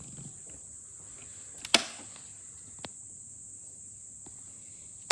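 A few sharp clicks, the loudest about two seconds in, as the robot vacuum's power button is pressed, with no motor starting: the vacuum won't turn on. A steady high-pitched hiss runs underneath.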